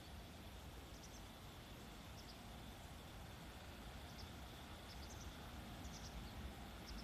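Quiet outdoor ambience: faint, short bird chirps every second or so over a low, steady rumble.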